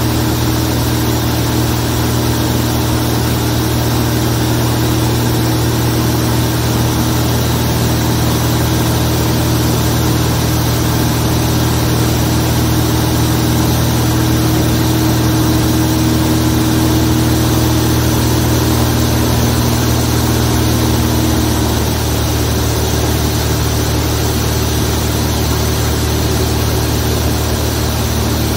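Zlín Z-42 light aircraft's inverted six-cylinder piston engine and propeller running steadily, with a slight change in tone about 22 seconds in.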